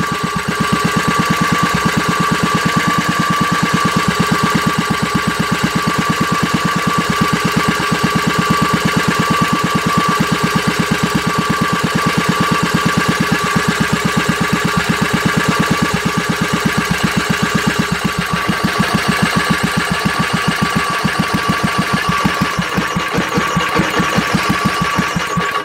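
Bernard W239 single-cylinder engine running steadily at low speed, an even beat of firing strokes with a steady whine over it, on its first start after restoration while its Solex carburettor is being adjusted.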